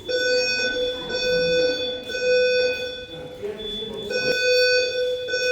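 Condo building fire alarm sounding a loud buzzing tone in repeated stretches with short breaks between them.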